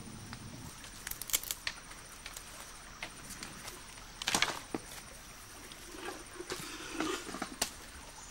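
Scattered crackles and rustles of dry leaf litter and twigs under bare feet moving over a forest floor, in short irregular bursts, the loudest about four seconds in.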